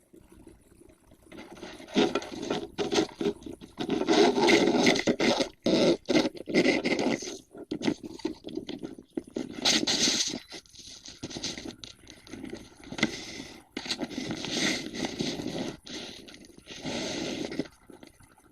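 Irregular scraping noises in rough bursts of a second or two, with short breaks between them.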